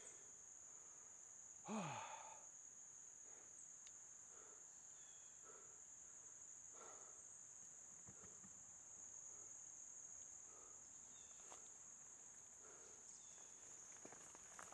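Steady high-pitched chorus of insects. A short low sound falling in pitch comes about two seconds in, and faint soft sounds come about once a second after it.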